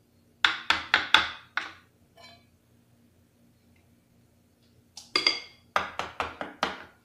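Small steel plates filled with batter being tapped on a marble counter to knock out air bubbles. There are two quick runs of sharp, ringing metallic knocks: about five about half a second in, and about six about five seconds in.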